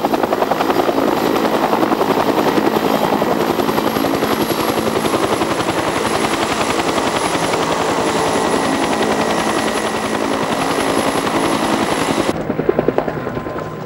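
A UH-1-type helicopter running close to the ground: the fast, steady beat of its two-blade main rotor over a high turbine whine. About twelve seconds in, the whine and the upper part of the sound drop out suddenly, leaving a lower rumble with a few pulses.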